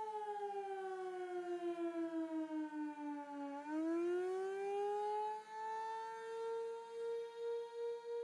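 Outdoor civil defense warning siren being tested, sounding one wailing tone that pulses quickly in loudness. Shortly after the start its pitch slides down for about three seconds, then climbs back to its first pitch and holds steady.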